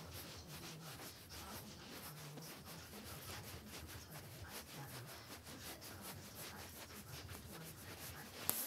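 Handling noise: a phone's microphone being rubbed against clothing and a hand, a continuous scratchy rustle made of many small crackles, with one sharp click near the end.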